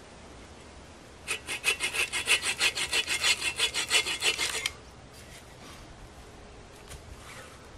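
Hand saw cutting through a wooden pole: a quick, even run of strokes, about six a second, lasting some three seconds, then stopping abruptly as the cut is finished. Faint rustling and handling follow.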